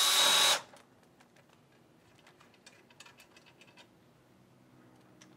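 A power drill-driver runs with a steady high whine, driving a 1/4-20 stainless bolt into a plastic mounting clip, and stops about half a second in. After that there are only faint clicks and scratches of parts being handled.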